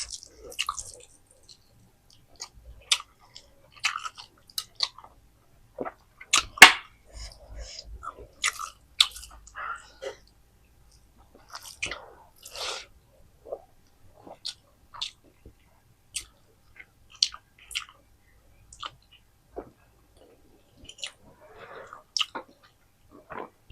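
Close-up mouth sounds of eating rice and chicken curry: wet chewing and lip smacks in irregular short bursts, with one louder smack about six and a half seconds in.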